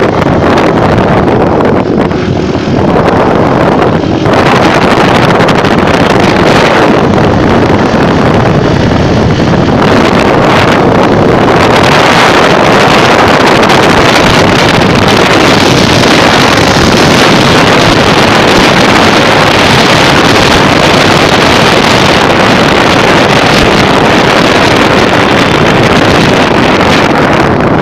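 Wind rushing loudly over the phone's microphone on a moving motorcycle, with the motorcycle's engine running under it.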